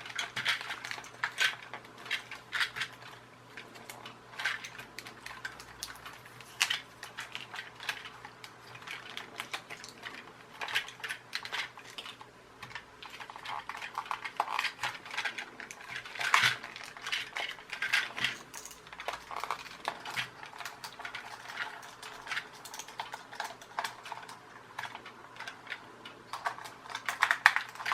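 Irregular clicks and light clatter of small hard parts and tools being handled, with a steady low hum underneath.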